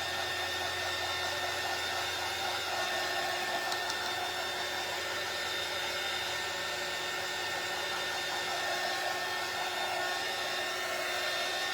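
Handheld hot-air blower running steadily, a constant whirring rush of air, used to melt away stray hot-glue strings.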